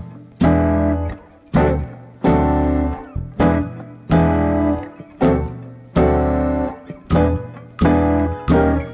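Instrumental background music: sharply plucked, ringing chords over bass notes, a new chord roughly every second in an even, unhurried rhythm.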